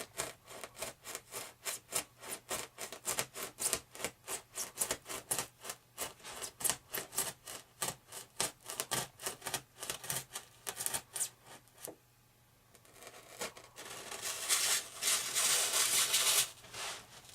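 X-Acto hobby knife sawing back and forth through the wing, with fast, even strokes at about three to four a second. After a short pause near the end comes a longer, steadier scrape of the blade.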